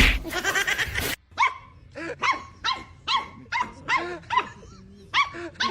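A dog yapping in a rapid run of short, high-pitched barks, about two to three a second, after a loud burst of sound in the first second.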